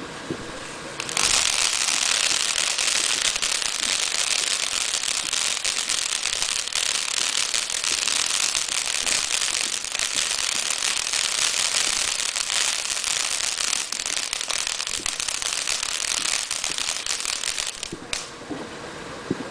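Fountain firework (喷花) spraying sparks: a steady, loud hiss laced with fine crackling. It starts abruptly about a second in and cuts off near the end as the fountain burns out.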